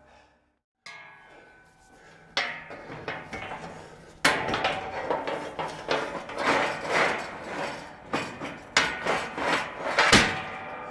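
Galvanised steel cattle gates clanking and rattling as they are handled and fitted together. Several sharp metal knocks ring on after each strike, the loudest about four seconds in and again near the end.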